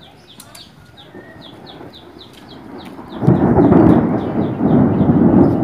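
Thunder rumbling. It builds slowly, then swells loud about three seconds in and stays loud to the end.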